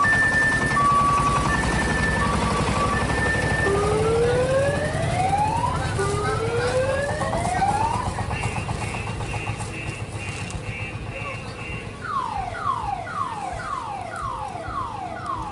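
Electronic siren of an odong-odong tourist road train cycling through its tones: an alternating two-tone hi-lo at first, then two slow rising wails, a fainter steady stretch, and near the end a rapid run of falling sweeps, about two a second. A low rumble runs underneath and fades as the sound gets quieter.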